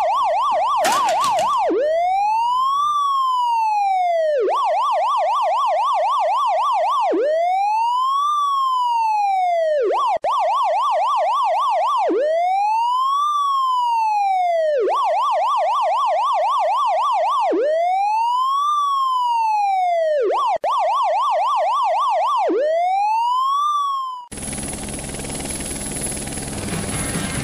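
Electronic police-car siren alternating between a slow rising-and-falling wail and a fast yelp, each lasting about two and a half seconds, over and over. About 24 seconds in it cuts off and music takes over.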